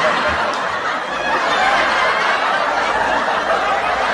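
Audience laughter from a crowd of many people laughing at once, held at a steady level: a canned laugh track.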